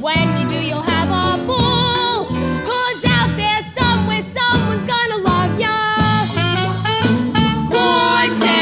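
Voices singing a show tune over a lively, jazzy musical accompaniment with a bass line and drums.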